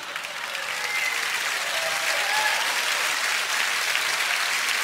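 Theatre audience applauding, the clapping growing louder about a second in and then holding steady.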